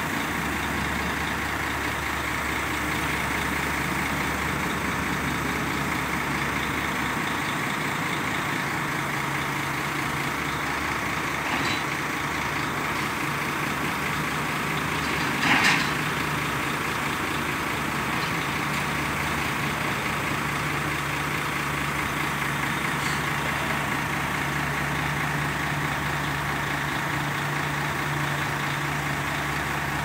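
JCB backhoe loader's diesel engine running steadily while the machine works broken road asphalt, with a brief louder noise about halfway through.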